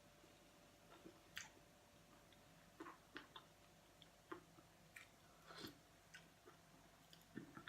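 Faint chewing, with irregular soft mouth clicks and smacks, a dozen or so over several seconds.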